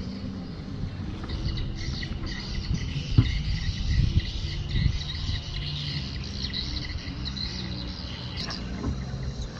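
Birds chirping and calling over a steady low rumble, with a few dull knocks around the middle.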